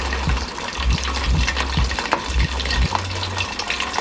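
Starch-coated hairtail pieces deep-frying in a stainless steel pot of oil: a steady sizzle with many scattered pops and clicks.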